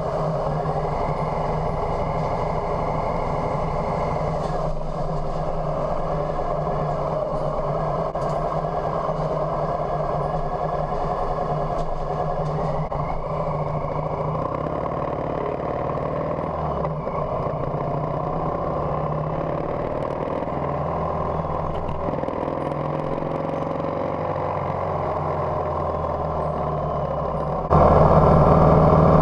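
Harley-Davidson Softail Heritage V-twin engine running steadily as the motorcycle rides, heard from a camera mounted on the bike. It gets suddenly louder about a second before the end.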